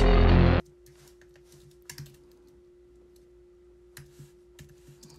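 Background music cuts off suddenly about half a second in, followed by faint, sparse computer keyboard typing clicks.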